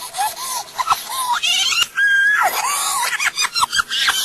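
A boy's screaming voice, sped up and played in reverse, coming out as rapid high-pitched yelps and squeals that break off and restart every fraction of a second.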